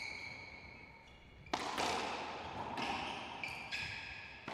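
Racquetball rally: several sharp smacks as the ball is struck by racquets and rebounds off the court walls, the loudest about a second and a half in. Short high-pitched squeaks of court shoes on the floor come in between the hits.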